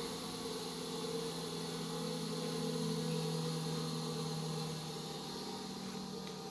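GMF 200 mm heavy-duty bench grinder running, its motor giving a steady hum that fades near the end.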